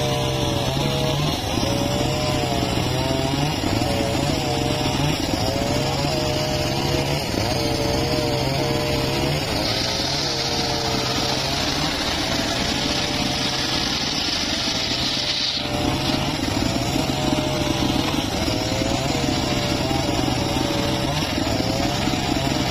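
Homemade table circular saw ripping a mahogany log into boards, its motor running steadily and its pitch dipping again and again as the blade bites into the wood. A brighter hiss comes in about ten seconds in and stops about five seconds later.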